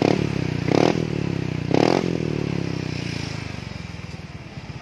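A Yamaha NMAX scooter's single-cylinder four-stroke engine running through an SKR racing muffler built to look stock. The throttle is blipped three times in the first two seconds, then the engine settles back to idle and gets quieter near the end.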